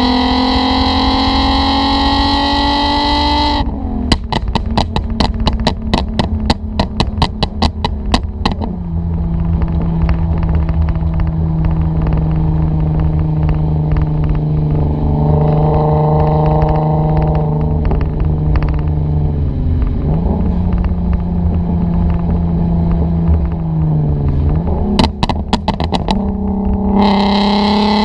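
Decatted Mk5 Volkswagen Golf R32's 3.2-litre VR6 engine accelerating with rising pitch, then popping and crackling through the exhaust in a rapid string of sharp cracks on the overrun for about five seconds. It then runs steadily with a few dips in pitch, gives another short burst of crackles near the end, and pulls up in pitch again.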